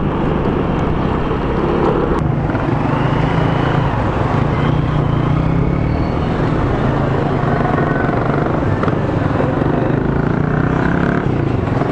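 Motorcycle running at a steady cruising speed of about 50 km/h, a steady engine hum mixed with wind and road noise, heard through a lavalier mic inside a closed-visor helmet.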